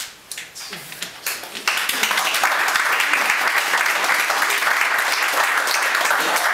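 Audience applause: a few scattered claps at first, then full, steady applause from a little under two seconds in.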